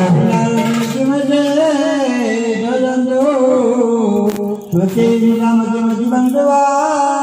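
A man's voice singing a Hindu devotional chant into a microphone, amplified over a sound system, in long held notes that slide up and down in pitch, with a brief break for breath a little past the middle.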